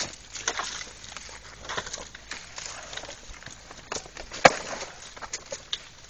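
Grapevine leaves rustling and stems snipping as grape bunches are cut from the vine by hand, with scattered small clicks and one sharp snap about four and a half seconds in.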